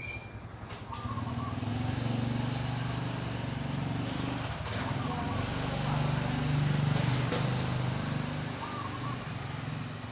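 A motor vehicle's engine running past, building up about a second in and fading near the end, with a few short bird calls over it.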